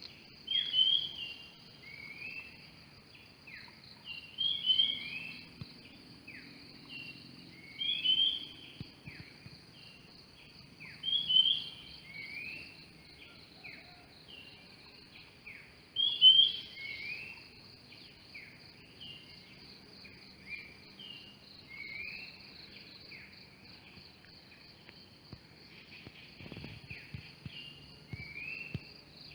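A bird singing a short phrase of rising whistled notes, repeated every three to four seconds and loudest in the first half, over a steady high-pitched insect drone.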